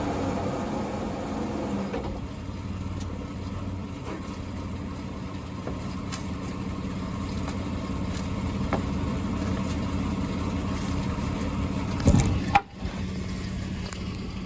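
Car in motion with a steady low drone, the hum of a bad wheel bearing. A brief loud thump comes near the end.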